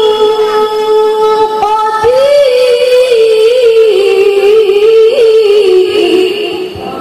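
A woman chanting Quran recitation in the melodic tilawah style: one long held note, a short break about two seconds in, then a new note that wavers with ornaments and slowly falls in pitch before fading near the end.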